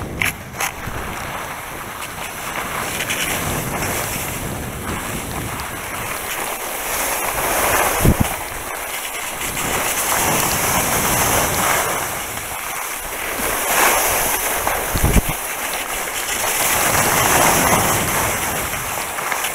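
Skis hissing over wet snow at speed, mixed with wind rushing on the microphone, swelling and easing with each turn. Two brief knocks, about eight and fifteen seconds in.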